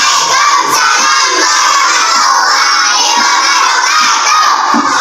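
A class of young children answering together in a loud, drawn-out chorus, many voices overlapping; it is the class's reply to the teacher's Islamic greeting.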